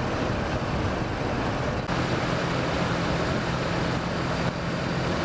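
Kawasaki Versys motorcycle cruising at steady highway speed: a steady rush of wind noise over the engine's even drone. The engine note comes through more clearly from about two seconds in.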